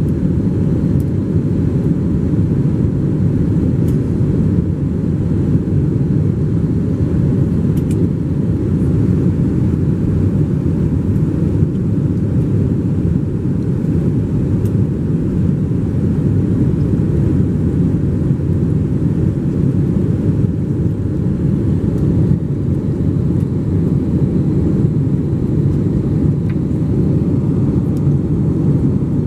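Steady cabin roar of an Airbus A321 in flight, heard from a window seat over the wing: engine and airflow noise, deep and unchanging.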